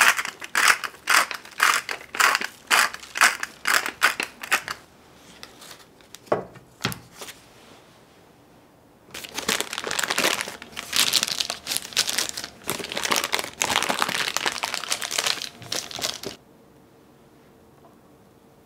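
Rhythmic crunching strokes as crisp dressed lettuce salad is mixed, fading out after about five seconds. After a pause, baking parchment crinkles steadily for several seconds as it is peeled back from a baked cake, stopping suddenly.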